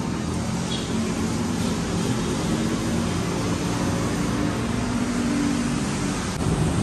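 Steady low background rumble with a faint low hum running under it.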